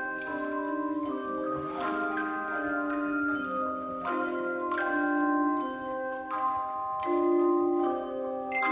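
Church bells ringing: several bells struck one after another at an uneven pace, their tones overlapping and ringing on between strikes.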